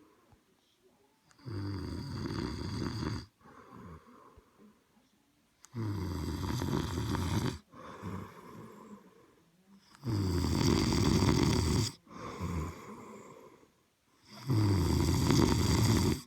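Snoring: four loud snores of about two seconds each, coming roughly every four seconds, with quieter breaths between them; the last two snores are the loudest.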